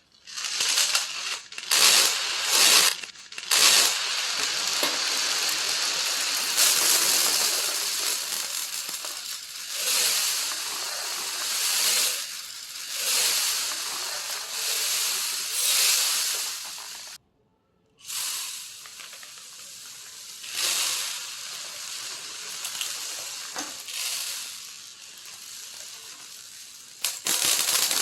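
Masses of small marbles and beads pouring and clattering against each other, a dense rattle of tiny clicks that swells and eases in waves, broken off by a brief gap about seventeen seconds in.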